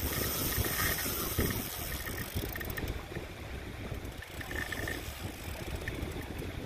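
Wind buffeting the microphone with a steady low rumble, and small waves washing on a sandy shore.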